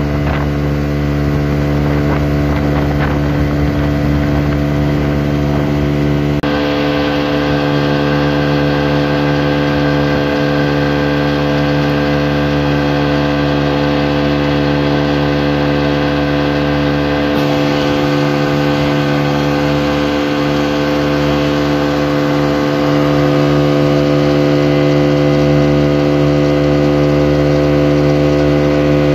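25-horsepower outboard motor running steadily at cruising speed, pushing the boat along while towing a second boat on a rope. Wind buffets the microphone for the first few seconds.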